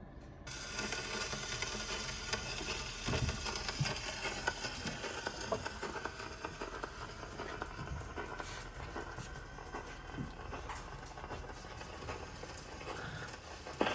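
Surface noise of a 78 rpm shellac record playing on a Sonora Philharmonic acoustic phonograph: a steady hiss and crackle from the lead-in groove that starts as the needle is set down about half a second in. A few soft knocks come from handling the cabinet.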